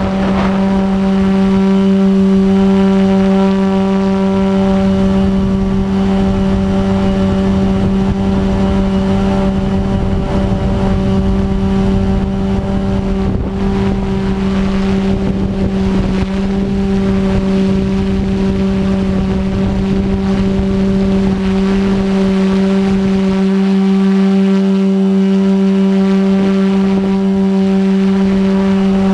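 Stingray 500 collective-pitch quadcopter's motor and rotors droning at a steady pitch in flight, heard close up from on board. Wind rumbles on the microphone and eases off for a moment a little after two-thirds of the way through.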